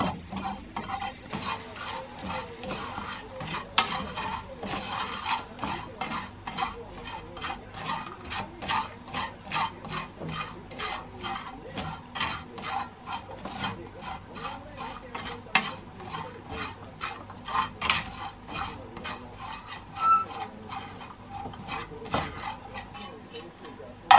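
Small dried sardines for gomame being stirred and tossed in a pan, a steady rhythm of scraping strokes at about three a second with a light sizzle underneath.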